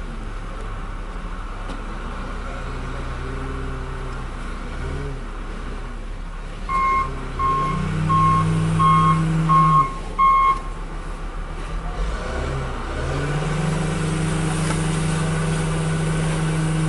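Diesel engine of heavy snow-removal equipment running, with a backup alarm beeping about six times in the middle as a machine reverses. Near the end the engine gets louder and holds steady under load.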